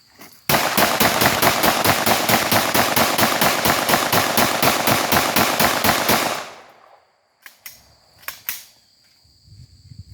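Glock 9mm pistol fired as fast as the trigger allows from a 50-round drum magazine: a rapid string of shots, about seven a second, for close to six seconds. A few separate sharp reports follow after a short pause.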